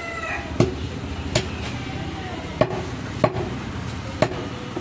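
Heavy butcher's knife chopping through mutton into a wooden log chopping block: five sharp chops at uneven intervals over steady background noise.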